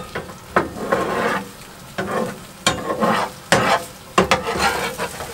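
Beaten eggs sizzling in a frying pan on a high gas flame, stirred and pushed about with a spatula and fork, with several sharp scrapes of the utensils against the pan.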